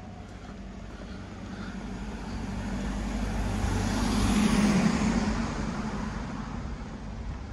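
A minibus driving past on an asphalt street: its engine hum and tyre noise swell up, peak about halfway through, then fade as it moves away.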